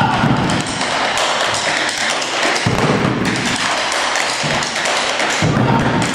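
Large double-headed drums carried on shoulder straps, beaten hard with sticks in a fast, driving rhythm of low strokes mixed with sharper, drier hits.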